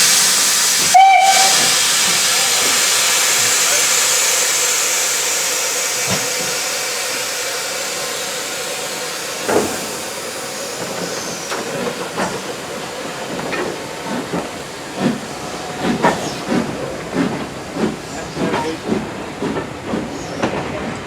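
Steam locomotive blowing off a loud hiss of steam, with a short whistle about a second in. The hiss then fades as the engine starts away, its exhaust beats coming more and more often in the second half.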